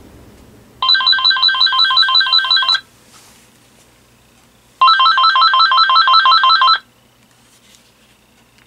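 AT&T EL51359 DECT 6.0 cordless handset ringing for an intercom call from another handset: two electronic ring bursts of about two seconds each, about two seconds apart, each a rapid warbling trill.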